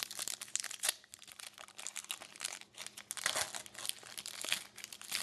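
Foil wrapper of a pack of hockey trading cards crinkling and tearing as it is handled and opened, a run of irregular crackles.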